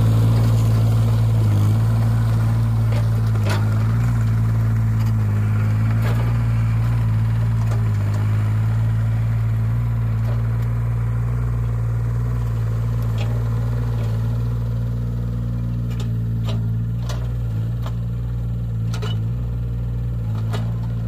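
JCB 8018 mini excavator's diesel engine running steadily as the machine tracks across the gravel, with occasional sharp clanks.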